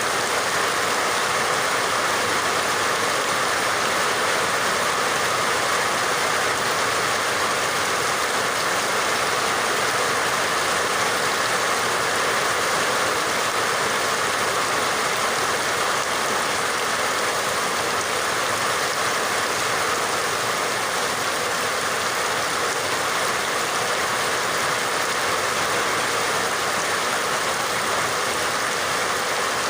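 Steady, even rain falling without a break.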